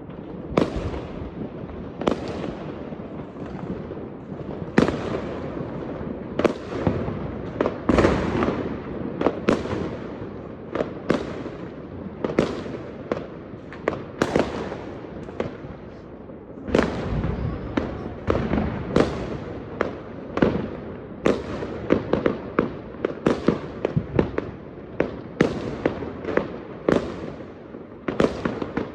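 Fireworks going off in rapid succession: sharp bangs one after another, about one to several a second and unevenly spaced, over continuous crackling, each bang trailing off in an echo.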